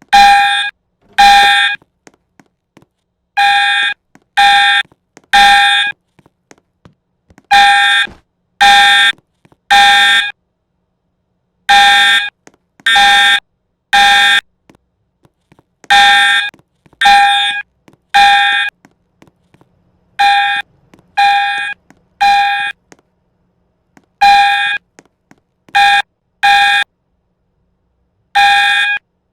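Fire alarm sounding the temporal-three evacuation pattern: three loud, half-second tones, then a pause of about a second and a half, repeating every four seconds or so.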